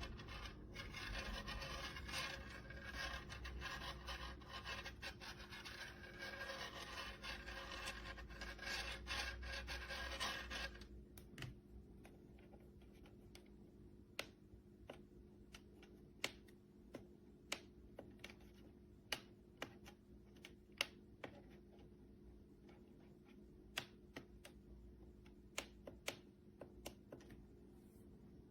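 Steady rubbing and scraping for about the first ten seconds, then stopping, followed by a run of scattered sharp clicks, roughly one a second.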